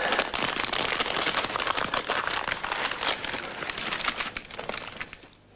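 Gift wrapping paper crinkling and rustling as a present is unwrapped: a dense crackling that fades out near the end.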